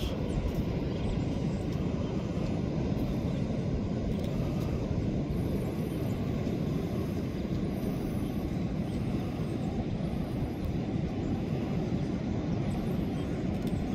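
Steady low rumble of ocean surf breaking on the beach, even and unbroken.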